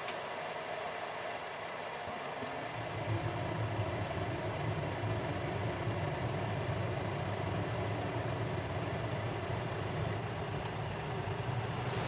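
Gas furnace running steadily with its draft inducer fan; about three seconds in the burners light and a low rumble of burning gas joins and holds, the normal ignition stage of the furnace's start-up.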